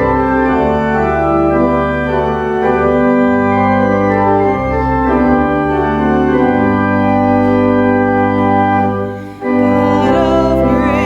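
Pipe or electronic church organ playing sustained chords, with a short break about nine seconds in. A voice starts singing with the organ near the end.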